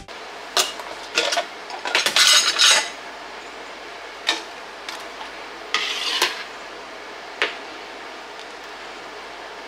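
Kitchen utensils and dishes clinking and clattering as canning tools are handled: separate sharp knocks, a quick cluster about two seconds in, and the last one about seven and a half seconds in.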